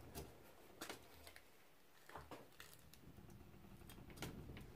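A few faint, irregularly spaced metallic clicks as a hand tap in a tap wrench is turned, cutting a 1.25 mm pitch thread into a metal bar held in a vise.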